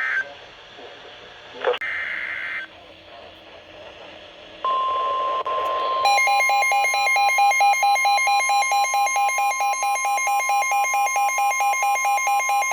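Emergency Alert System signalling: a short screech of digital header data near the start and another about two seconds in. About five seconds in, a steady weather-radio alert tone starts, and a second later it is joined by a rapidly pulsing, many-toned beeping alarm that runs on. Together they announce a new warning.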